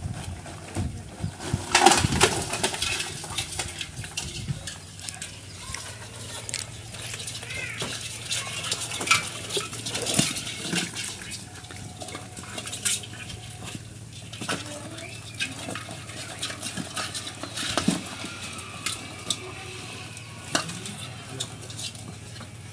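Live mud crabs tipped from a plastic bag into a basin, then scrabbling and clicking against the basin, with the bag rustling. A cluster of knocks comes about two seconds in, followed by scattered taps and clicks.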